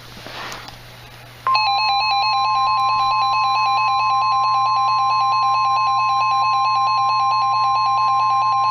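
Weather radio alert tone starting abruptly about a second and a half in: a steady tone near 1 kHz, the 1050 Hz warning alarm tone that announces a new alert, with a rapid pulsing beep over it.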